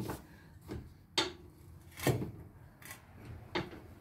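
Metal clanks and clicks from a car jack and jack stand being raised under the frame: about six separate knocks at uneven spacing, some with a short ring.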